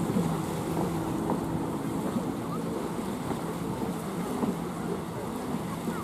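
Jet ski engine running steadily offshore as a constant hum, with small waves washing on the shore and wind on the microphone.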